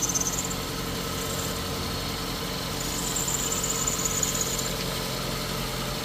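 Ford Figo's Duratec petrol engine idling steadily with no hunting, its misfire cured by a cylinder-head valve repair. An accessory drive belt squeals with a high 'chee chee' at the start and again from about three to nearly five seconds in.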